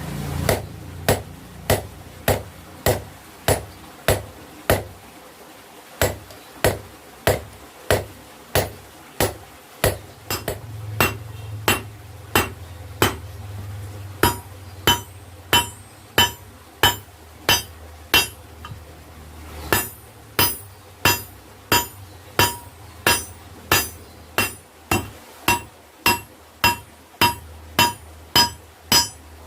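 Hand hammer striking the steel of an old stone chisel on an anvil, blacksmith forging, at a steady pace of about two blows a second; many blows ring.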